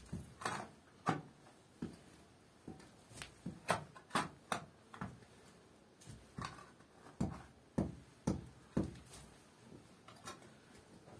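Irregular sharp knocks and scrapes of hand digging: a small hoe striking earth and stones, with stones being shifted.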